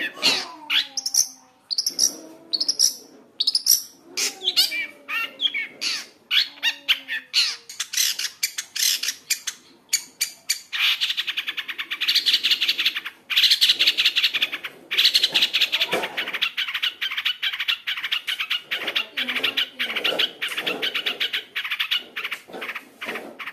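Long-tailed shrike singing a fast, varied song of clicks, chatters and mimicked phrases, the rich 'full isian' song of a cendet. It has gliding lower notes in the first few seconds and a dense rapid rattle through the middle.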